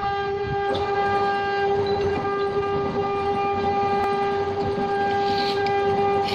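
Wood lathe running with a steady, high-pitched motor hum, over the rough scraping of a hand tool held against the spinning wooden workpiece.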